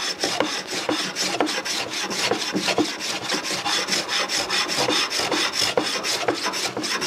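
Stanley No. 4 smoothing plane taking quick, short strokes across a wooden bow-tie key, a steady run of rasping shavings several times a second, trimming the proud inlay down flush with the board's face.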